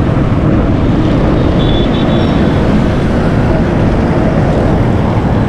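Loud, steady street traffic noise: engines of auto-rickshaws, motorcycles and buses running together, with a brief faint high tone about two seconds in.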